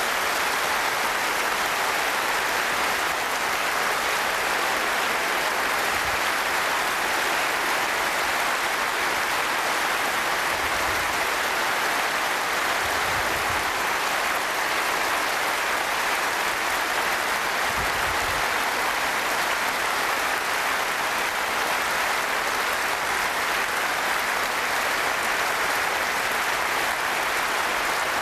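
A large audience applauding steadily, the clapping holding at an even level without a break.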